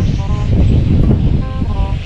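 Three 80 cm kite hummers (mòng) on a flying kite sound short, wavering tones at several pitches at once over heavy wind rumble on the microphone. The note keeps breaking off, which the flyer puts down to the hummers' strings slapping against one another and losing their sound.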